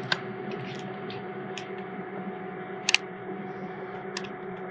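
Scattered light clicks and taps, the sharpest about three seconds in, from chicken on a metal baking tray being handled and probed with a meat thermometer, over a steady low appliance hum.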